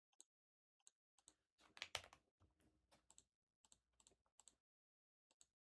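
Faint computer keyboard typing: scattered soft clicks, the loudest about two seconds in.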